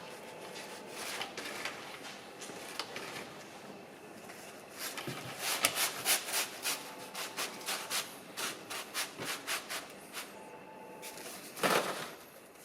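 Rhythmic hand scraping and rubbing strokes, about two a second in a run through the middle, with one louder, longer scrape near the end.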